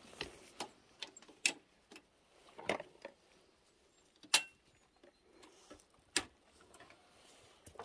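A pen gate's latch and wire mesh being closed and fastened by hand: about eight separate sharp clicks and knocks at irregular spacing, the loudest about four seconds in.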